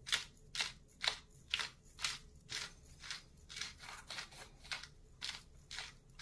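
Hand-held pepper mill being twisted, grinding peppercorns with a regular dry crunch about twice a second.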